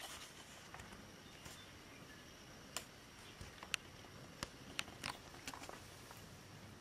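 Nursing kittens suckling at the mother cat: faint, scattered little wet clicks and smacks over a low hiss.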